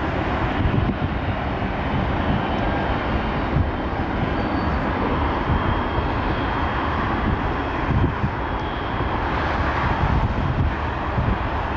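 Airbus A320 airliner's jet engines running at taxi thrust: a steady jet roar with a faint high whine, over an uneven low rumble of wind on the microphone.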